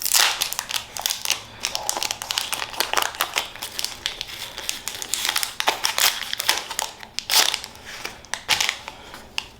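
Foil Pokémon booster pack wrapper crinkling as it is handled and torn open, in quick irregular crackles, loudest right at the start and again about six and seven and a half seconds in.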